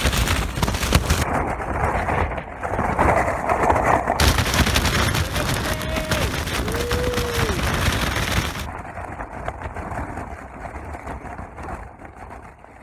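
Tent fabric flapping and cracking rapidly in strong gusty wind, with wind rushing over the microphone; it eases off somewhat in the last few seconds.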